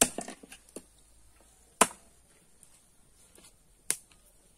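Small wood fire of sticks and straw crackling as it struggles to catch: a few sharp pops, at the start, about two seconds in (the loudest) and near the end, with faint ticks between. The sticks are damp from the rain and slow to burn.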